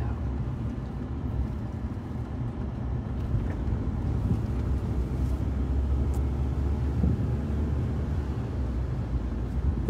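Car engine and tyre noise heard from inside the cabin while driving along a hill road, a steady low rumble.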